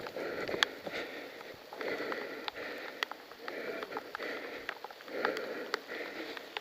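Heavy, rhythmic breathing of a person close to a helmet-mounted camera microphone, about one breath a second, with small scattered clicks and knocks.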